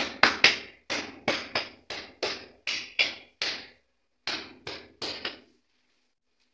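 A hand slapping a ceramic floor tile again and again, about three sharp strikes a second, to bed it into the mortar. The strikes stop about five seconds in.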